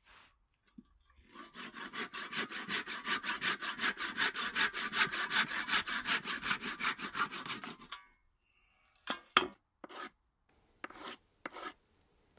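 A rasp scraping across a wooden handle being rounded by hand, in quick even strokes of about six a second for some six seconds. It then stops, and a few slower single strokes follow near the end.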